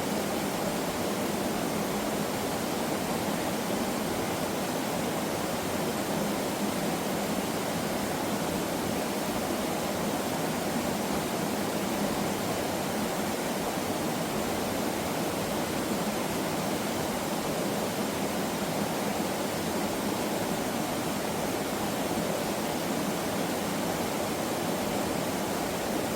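Rushing water of a mountain valley stream, a steady, unbroken rush with no changes.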